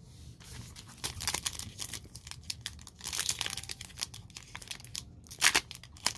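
Foil wrapper of a Topps Big League Baseball card pack crinkling in the hands and being torn open at the top: a run of sharp crackles and rips starting about a second in, with louder bursts around the middle and near the end.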